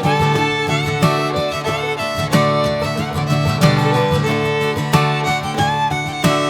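Background music: fiddle melody over plucked guitar with a steady beat, in a bluegrass or country style.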